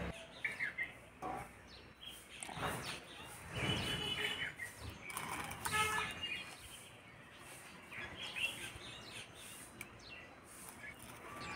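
Birds chirping now and then, with occasional light knocks and scrapes of dry firewood sticks being pushed into a clay mud stove.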